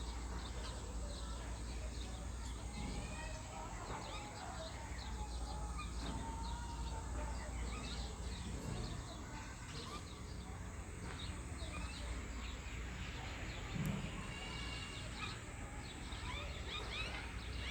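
Wild birds chirping and calling, with many short overlapping chirps over a steady low rumble. One short thump comes about three-quarters of the way through.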